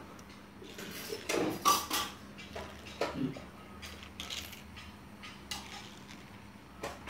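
Toy cars and a plastic toy front loader clattering and scraping on a hard floor as they are pushed by hand: irregular knocks and rattles, the loudest about two seconds in, over a faint steady hum.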